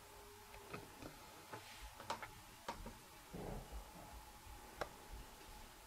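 Sheets of paper being handled and turned: a few faint scattered clicks and taps, with a short rustle about three and a half seconds in, over a faint steady hum.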